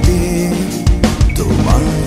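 Background music: a Bengali rock song with drums, in a passage with no singing.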